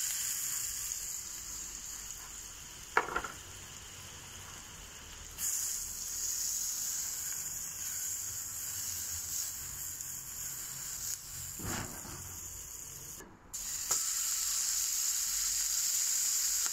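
Butter sizzling on the hot griddle plate of a Weber Q 1000 gas grill, a steady frying hiss that grows louder about five seconds in and again near fourteen seconds. A short knock sounds about three seconds in.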